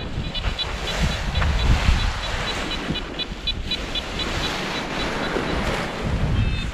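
Strong gusting wind buffeting the microphone and the paraglider wing's fabric as it is gathered on the ground. Quick runs of short, high electronic beeps repeat throughout.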